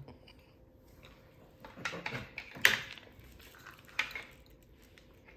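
Discs of a giant Connect Four board clacking as they are dropped into the columns and hit the pieces below: a few clacks about two seconds in, the loudest just before three seconds, and another single knock about four seconds in.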